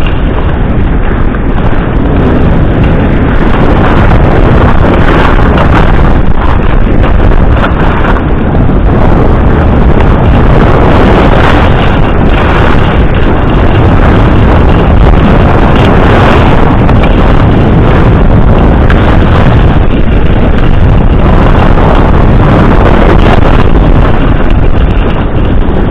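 Loud, steady rushing wind noise on a skier's camera microphone during a fast downhill run, mixed with skis sliding over packed groomed snow.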